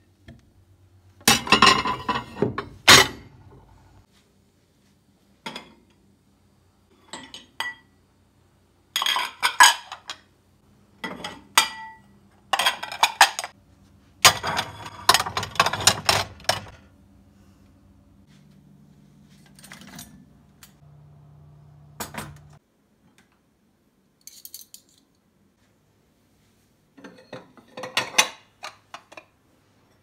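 Ceramic plates and bowls clinking and clattering as they are set down and stacked on a cupboard shelf, in repeated short bursts with pauses between them.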